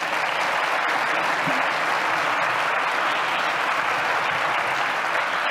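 Audience applauding, a dense, steady clapping at an even level.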